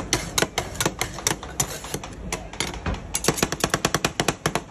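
Two steel spatula scrapers chopping mango ice cream on a steel rolled-ice-cream pan: an uneven clatter of metal-on-metal clacks that quickens after about three seconds.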